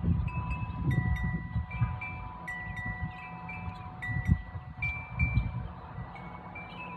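Wind chimes ringing, several clear pitched tones sounding one after another and overlapping, each held about a second, with low rumbles of wind on the microphone underneath.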